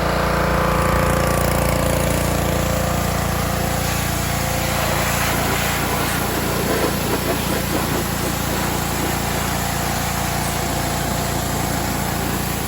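Pressure washer running steadily, its small engine going while the wand sprays.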